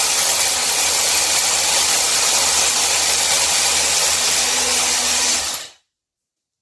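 Einhell Herocco cordless rotary hammer drilling into a concrete wall: a loud, steady drilling noise that cuts off abruptly near the end.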